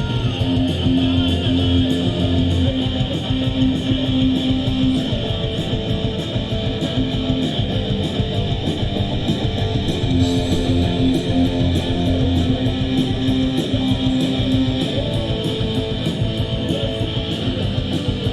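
Live punk rock band playing an instrumental passage: strummed electric guitars over bass and drums, with no vocals and a steady beat throughout.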